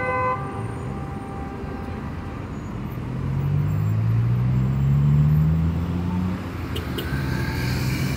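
Street traffic: a car's engine note rises steadily as it accelerates through the intersection, loudest about five seconds in. Near the end, another vehicle's engine is heard passing.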